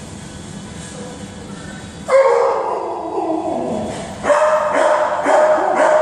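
Dogs barking and yelping, starting suddenly about two seconds in with a pitched call that slides downward, then from about four seconds a run of repeated barks over a steady high yelp.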